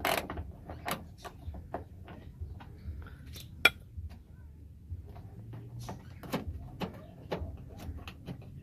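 Scattered clicks and knocks of hand tools and small metal parts against the car door, as a door-handle screw or bolt is worked out, with one sharp click a little under four seconds in.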